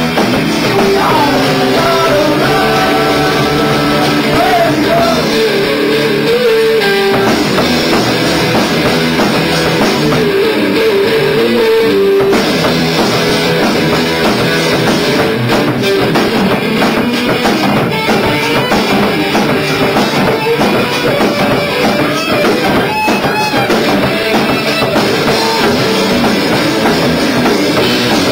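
Rock trio playing live: electric guitar over bass guitar and drum kit, in an instrumental passage. The guitar plays a melodic line with bent notes.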